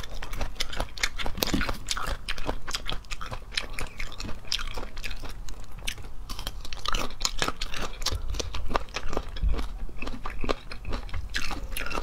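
Close-miked chewing and biting of salak (snake fruit) flesh: a dense, continuous run of quick clicks and crunches.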